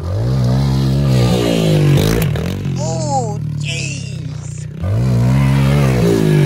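Small pit bike engine revving hard as it is ridden over dirt jumps, climbing and holding at high revs, easing off, then revving up again about five seconds in. A brief shout cuts in around three seconds.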